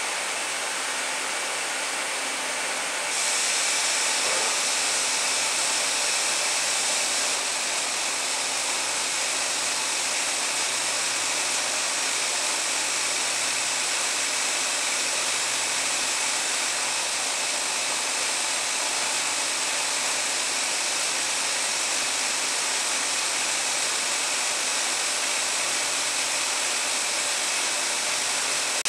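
Bignami M134 automated production machine running: a steady, even hiss of machine noise with a faint hum and no distinct rhythm. It grows brighter and a little louder about three seconds in, easing slightly a few seconds later.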